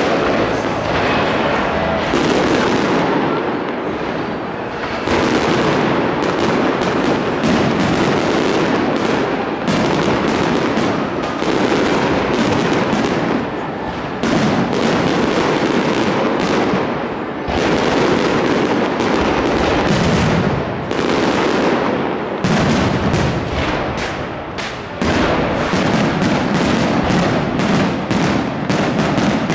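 Fireworks display: a dense, unbroken barrage of shell bursts and crackle, with many bangs a second overlapping.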